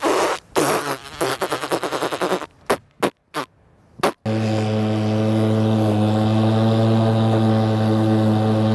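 Grass clippings shaken out of a lawn mower's catcher bag into a wheelbarrow, rustling in bursts for about two and a half seconds, followed by a few knocks. About four seconds in, background music cuts in abruptly: a steady low droning note with overtones.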